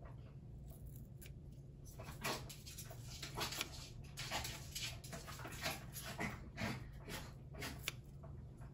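Pet dogs playing: a string of short, fairly faint scuffling and vocal sounds that starts about two seconds in and goes on in irregular bursts.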